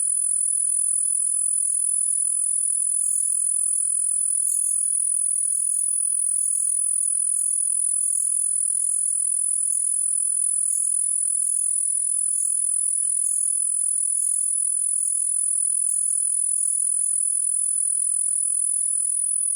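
Insects, crickets or similar, trilling: a loud, steady, high-pitched shrill, with a brighter chirp pulsing a little over once a second.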